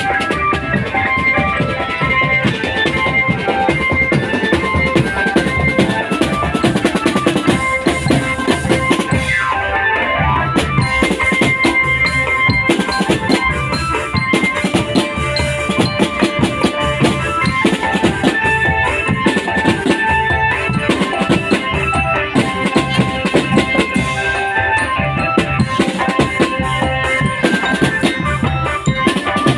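A drum band plays a fast, steady beat on marching bass drums and snare drums, with a melody carried over the drums.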